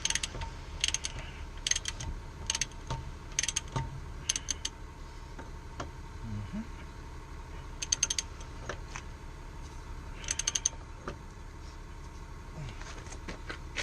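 Ratchet wrench clicking in short rapid bursts while bolts are tightened: about one burst a second at first, then two more after a pause.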